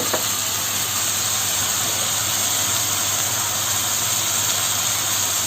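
Chicken, prawns and vegetables sizzling in a hot wok with a steady hiss over a low, even hum.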